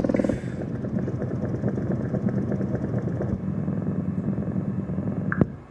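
Skar SDR 10-inch subwoofer driven by two chip amplifier boards, playing a low bass test tone from a frequency test. The tone steps down shortly after the start, runs steadily with a fast flutter, and cuts off with a click about five seconds in.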